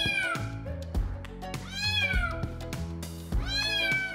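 Cat meowing in high, drawn-out calls: a short meow ending just after the start, another about one and a half seconds in, and a long falling one from about three seconds in, over background music with a steady beat.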